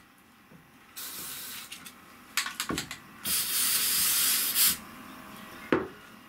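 Aerosol can of rocker guard coating hissing as it is sprayed onto rivet heads in bursts: one about a second in, a brief one shortly after, then a longer spray of about a second and a half. A single sharp knock near the end.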